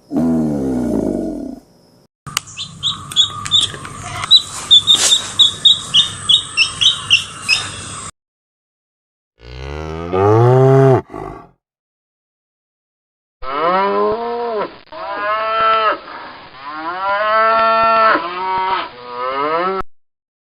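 Cattle mooing: one rising moo about ten seconds in, then a run of long, arching moos near the end. Before these come a short call that falls in pitch and several seconds of rapid high chirping.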